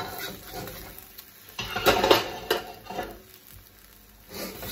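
Metal spatula scraping and stirring noodles across the bottom of a bare steel wok, lifting off the charred bits. It comes in bursts, loudest about two seconds in, with another scrape near the end.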